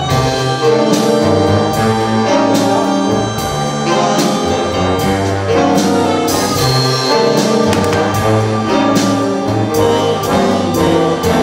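A high school jazz big band playing the start of a ballad arrangement, with saxophones, trombones and trumpets together over a steady beat.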